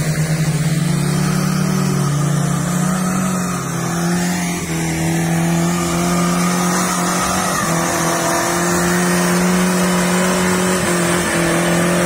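Suzuki Jimny engine held at high, steady revs under load as the 4x4 works up a muddy track, with a brief dip in loudness about four seconds in.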